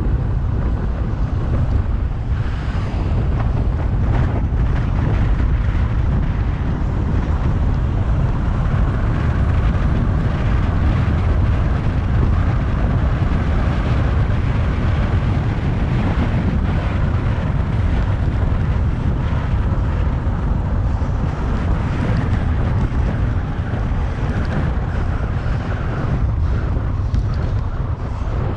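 Wind buffeting the microphone of a camera riding on a moving bicycle: a steady, loud, low rush with no clear tones or knocks.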